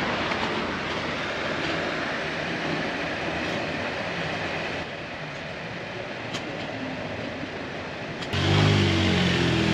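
Steady noisy background hiss, then about eight seconds in a Jeep Wrangler's engine starts with a sudden jump in loudness and settles into a steady idle.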